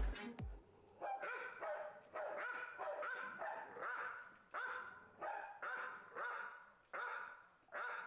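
A dog barking repeatedly, about ten barks less than a second apart.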